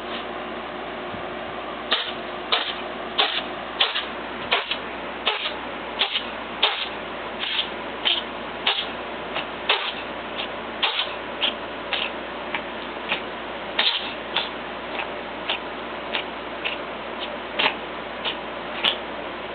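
A cat making a long, fairly even run of short, sharp, crisp sounds, about one and a half a second, starting about two seconds in, over a constant hiss.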